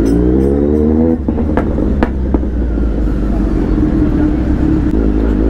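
Kawasaki Z900 inline-four motorcycle engine with an Arrow full-system exhaust, revving up briefly and dropping off about a second in. Three sharp pops follow as the throttle closes, then the engine runs steadily at low speed.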